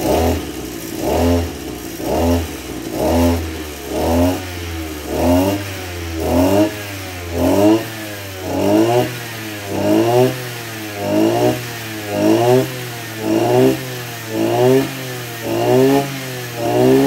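Maruyama MB2630 26cc two-stroke brush cutter engine revved over and over, blipped from idle up to high revs and back about once a second. It picks up revs quickly and cleanly, the sign of a strong, responsive engine in good running order.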